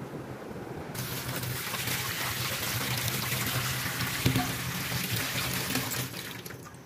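Tap water running into a sink and over diced pieces in a plastic colander as they are rinsed. The water comes on about a second in and stops near the end.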